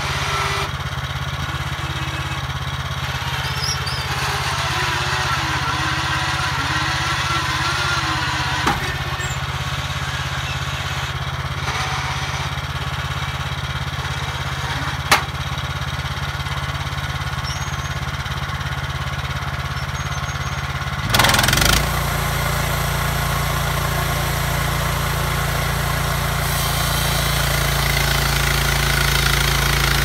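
Frontier OS23 portable bandsaw sawmill's engine running steadily, with two sharp clicks along the way. About two-thirds of the way through a short loud burst comes, and the running sound turns louder and deeper as the saw head starts to move along the log.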